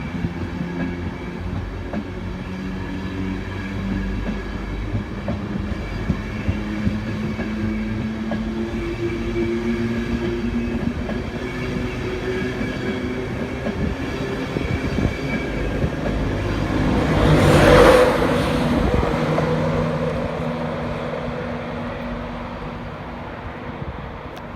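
A train running past on the line, with steady mechanical tones and wheels clicking over the rail joints. It grows louder to a peak about 18 seconds in as it passes closest, then fades away.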